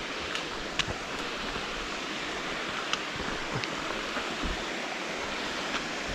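A steady rushing noise, such as wind or running water heard outdoors, with a few faint sharp clicks at irregular moments.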